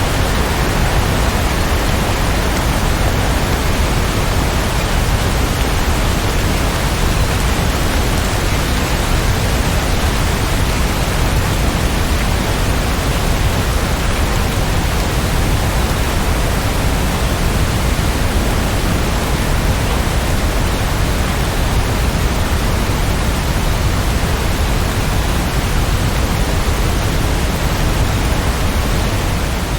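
Heavy, steady rain: a dense, even hiss with no single drops or thunder standing out.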